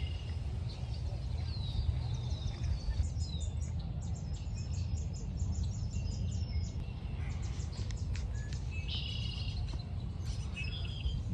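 Several small birds chirping and singing, with short downward-sliding notes, quick trills and a buzzy repeated phrase, over a steady low rumble.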